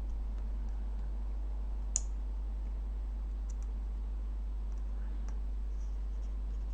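A steady low hum with one sharp click about two seconds in, then a few faint ticks, like small objects being handled on a workbench.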